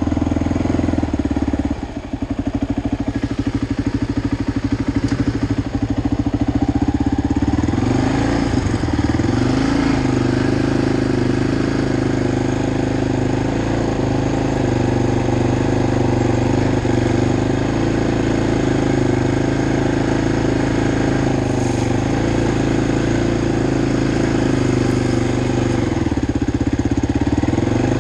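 Sport quad's engine running at low revs. Its pitch drops about two seconds in, rises again around eight to ten seconds, and dips once more near the end.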